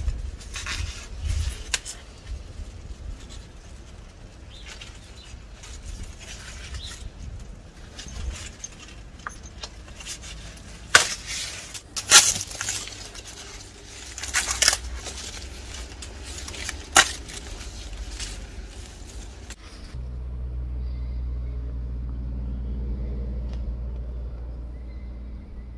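Corn husks being torn and peeled back by hand: rustling with several sharp crackling tears. About two-thirds of the way in this gives way abruptly to a steady low rumble.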